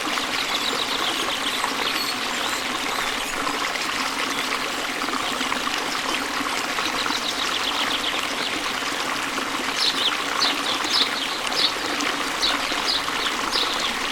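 Water trickling and splashing steadily. About ten seconds in, a bird starts singing a run of short, high, falling notes, a few each second.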